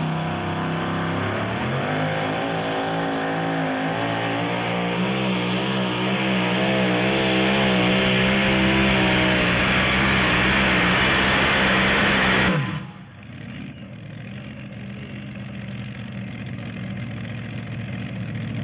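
Supercharged engine of a 6,200 lb two-wheel-drive pulling truck at full throttle, dragging the sled. Its pitch climbs at about two seconds and wavers in the middle of the pull. The engine cuts off abruptly with a falling pitch about twelve and a half seconds in as the pull ends, leaving a quieter background noise that slowly swells.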